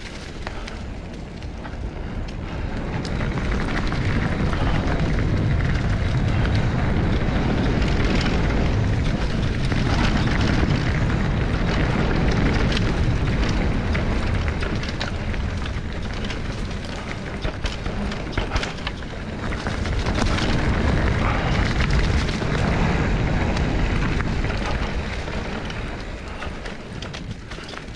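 Heavy wind buffeting a GoPro's microphone: a loud, rumbling rush that swells a few seconds in, dips briefly past the middle, swells again and eases off near the end.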